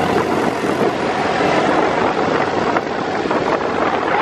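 An open dune buggy driving along a paved road: steady engine and road noise, with wind rushing over the microphone.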